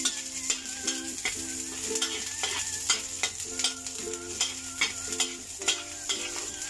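Garlic and shallots sizzling in hot oil in a wok while a metal spatula stirs them, scraping and knocking against the pan about twice a second.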